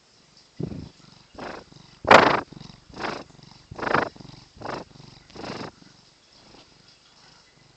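Domestic cat purring in about seven rough pulses a little under a second apart. The loudest pulse comes about two seconds in, and the purring fades out near the end.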